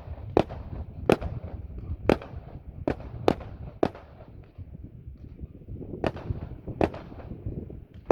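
Fireworks exploding overhead: about eight sharp bangs at irregular intervals, with a lull of about two seconds in the middle, over a continuous low rumble.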